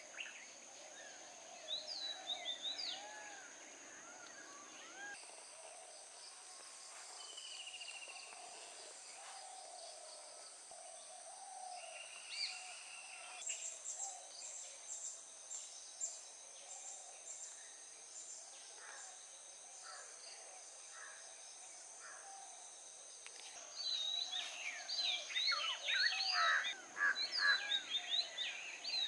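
Tropical garden ambience: insects hold steady high-pitched drones while assorted birds chirp and whistle. An insect call pulses in quick repeated beeps for a few seconds midway, and near the end a busy flurry of chirping from several birds becomes the loudest sound.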